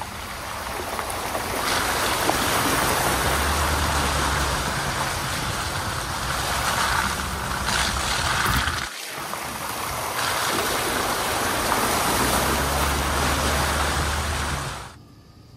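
A truck's front tyre ploughing through muddy puddles on a dirt trail, throwing up muddy water: a steady rush of splashing and spray that breaks off briefly about nine seconds in and cuts off near the end.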